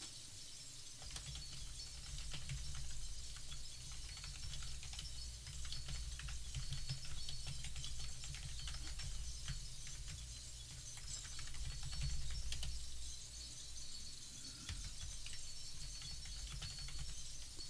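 Faint, irregular clicking of a computer keyboard being typed on, over a low rumble.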